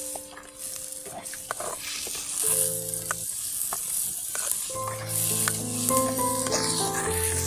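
Food sizzling in a hot pan while being stirred, with scattered clicks of a utensil against the pot. Background music plays with it and grows fuller in the second half.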